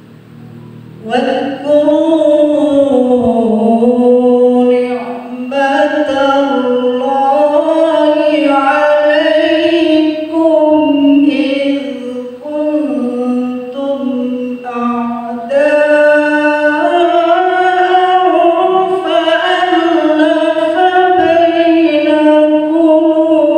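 A man's melodic Quran recitation (tilawah) into a microphone, amplified: a single voice starting about a second in with long held, ornamented phrases that bend slowly in pitch, pausing briefly for breath twice.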